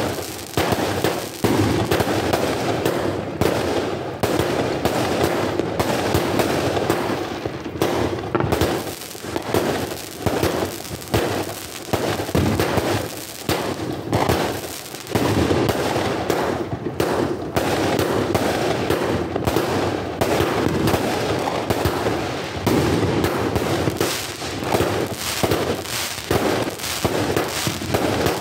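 60-shot consumer firework cake firing a rapid, unbroken volley: shot after shot launching from its tubes and bursting overhead with sharp bangs.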